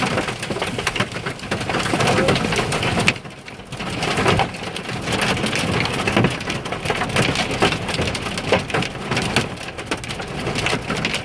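Hail and wind-driven rain pelting a vehicle's body and windshield: a dense, continuous clatter of impacts that slackens briefly about three seconds in.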